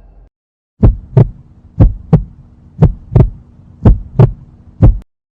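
Heartbeat sound effect: low lub-dub double thumps about once a second, five beats over a faint steady hum, cutting off suddenly near the end.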